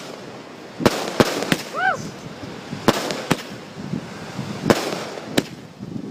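Consumer fireworks firing in quick succession: about seven sharp bangs at uneven intervals, with a noisy hiss between them. About two seconds in there is a short whistle that rises and falls.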